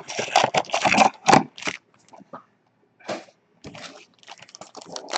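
Crinkling and clicking of trading-card packaging being handled and opened, in quick irregular bursts that pause briefly midway.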